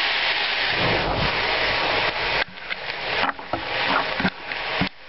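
Cognac hitting a very hot pan of seared shiitake mushrooms and flambéing: a loud sizzling hiss as the alcohol flares, breaking up after about two and a half seconds into uneven gusts with low rumbles as the flames flicker, then falling away near the end.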